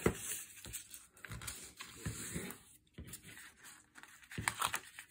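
Craft knife slicing through cardstock-weight patterned paper, with a series of scratchy cutting strokes, a sharp click as the blade is set down at the start, and paper rustling as the sheet is handled.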